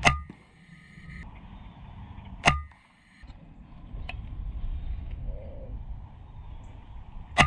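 Three sharp shots from an FX Impact .30 PCP air rifle: one at the start, one about two and a half seconds in and one near the end, each followed by a brief ringing tone. A fainter click comes about four seconds in.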